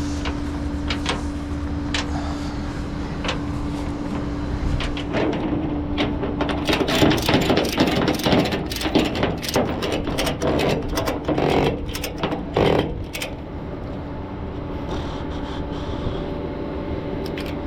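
Flatbed tow truck idling with a steady hum, and in the middle a stretch of rapid metallic clicking and rattling.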